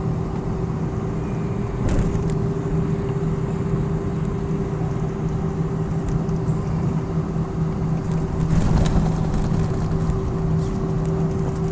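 Cabin noise inside an Airbus A319 on the ground: the idling jet engines and air system give a steady rush with two steady hum tones, one low and one higher. There is a brief knock about two seconds in.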